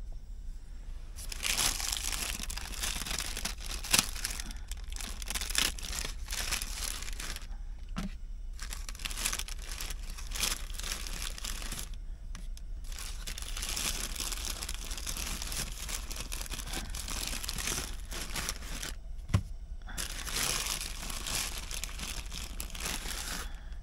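Crinkly packaging being handled, rustling and crinkling in long stretches with short pauses, and two sharp knocks, one about four seconds in and one near the end.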